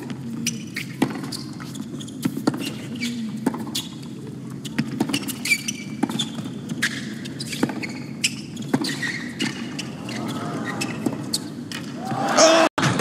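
Tennis rally on a hard court: sharp pops of racket strikes and ball bounces at irregular intervals over a low crowd hum. The crowd swells into loud cheering near the end.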